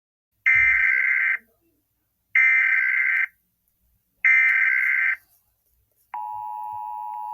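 Emergency Alert System SAME header: three loud bursts of warbling digital data tones, just under a second each and about two seconds apart. About six seconds in, the steady two-tone EAS attention signal starts, the alarm that announces an emergency alert.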